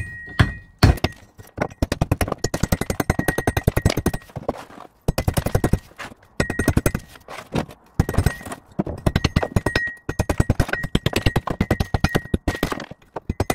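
Mineralised rock and rust being pounded into powder: rapid repeated knocks in bursts of a few seconds, with short pauses between them.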